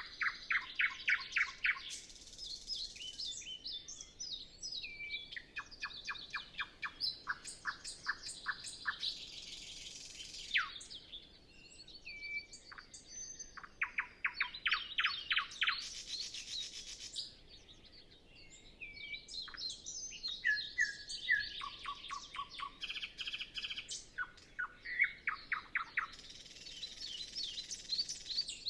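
A nightingale singing: phrase after phrase of fast repeated notes, rattles and whistles, each phrase a few seconds long with short pauses between them.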